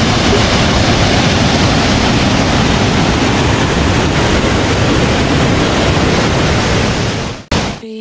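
Loud, steady rush of a small waterfall pouring into a rock pool. It cuts off suddenly near the end, and guitar music comes in.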